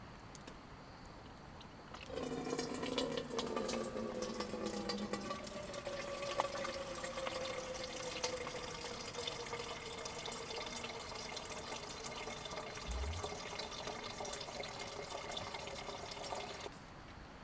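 Food sizzling and crackling in a hot frying pan over the fire, a dense steady sizzle that starts abruptly about two seconds in and cuts off shortly before the end.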